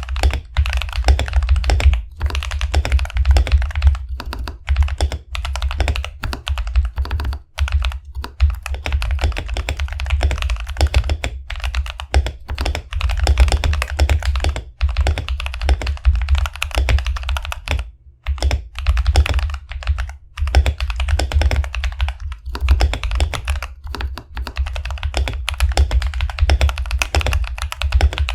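Fast, continuous typing on a Royal Kludge RK61 mechanical keyboard with lubed Akko Ocean Blue tactile switches, PBT keycaps and a foam-dampened case, with a few brief pauses between bursts of keystrokes.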